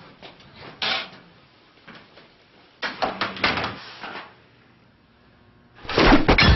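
A few scattered knocks and clatters, like office doors or drawers, then near the end a fist fight breaks out with a sudden loud rush of blows and crashing.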